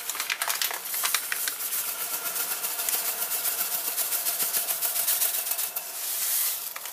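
Granulated sugar poured in a steady stream into a stainless steel pot of simmering cranberry sauce: a dense, grainy hiss full of fine crackles.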